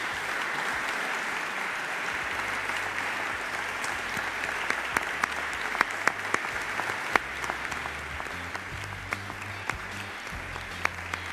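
Sustained applause from a chamber full of people clapping, a dense patter at first that thins in the second half, with single louder claps standing out.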